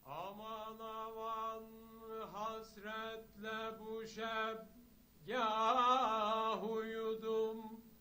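A group of men singing a Turkish song together, long bending melodic phrases over a steadily held low note. The singing breaks briefly about five seconds in and comes back louder.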